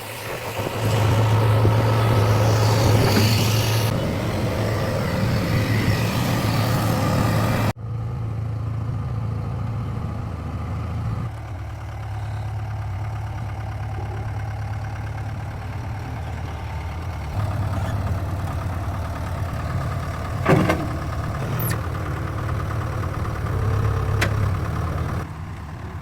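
JCB 3DX backhoe loader's diesel engine running with a steady low hum, the pitch and loudness shifting now and then as the machine is worked. The sound changes abruptly about eight seconds in, losing a hissy upper layer, and a single sharp clank comes through about twenty seconds in.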